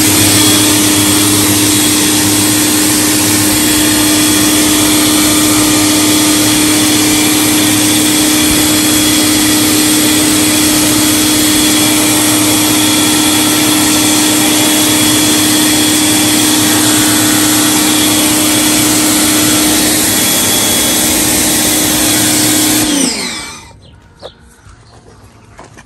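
Pressure washer running steadily with a constant hum while its jet sprays water onto a car's body. The machine shuts off near the end and winds down quickly.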